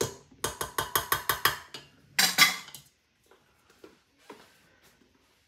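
A utensil knocking against a stainless steel mixing bowl: a quick run of about eight sharp metallic taps, then a louder clatter a little over two seconds in, followed by a few faint knocks.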